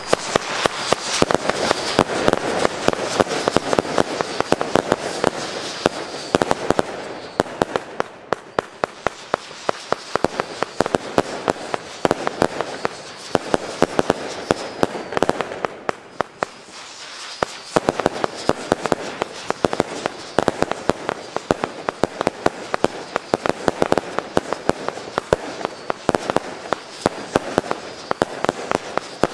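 Funke Whistling Palms firework battery firing: shots whistling up one after another and bursting, a dense, continuous run of bangs and crackles that eases briefly twice.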